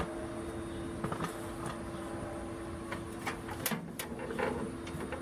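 A steady low electrical hum, with a few light clicks and knocks of objects being handled, the clearest about a second in and near the end.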